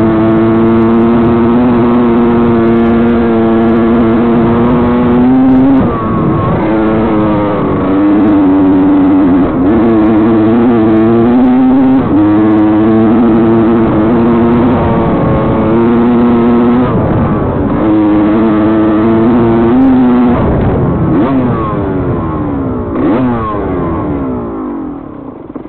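Honda CR two-stroke dirt bike engine running hard at high revs, its pitch dipping and climbing again every few seconds with throttle and gear changes. In the last few seconds the revs fall away in repeated downward glides, with one brief blip, and the sound fades out at the very end.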